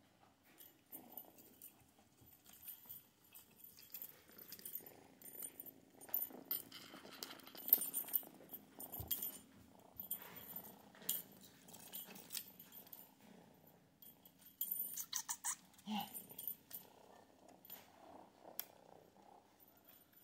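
Cream Persian kitten playing with toys on a tile floor: scattered light clicks, taps and rattles as the toys and paws strike the floor, over a faint steady hum.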